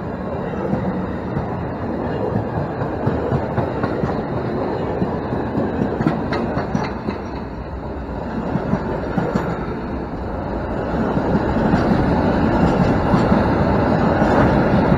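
Freight train wagons rolling slowly past close by: a steady rumble of wheels on the rails with clattering wheelsets, growing louder in the last few seconds.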